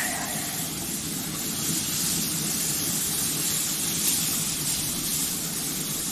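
Marinated chicken and steak sizzling steadily on a hot wood-pellet grill's grate, an even hiss.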